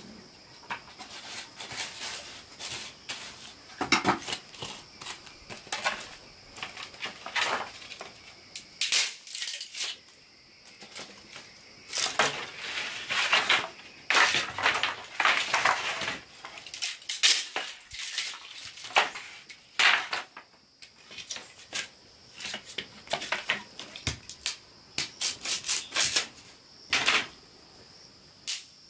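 Irregular crunching, clicking and clattering, as of objects being handled or broken, with a steady high-pitched drone underneath.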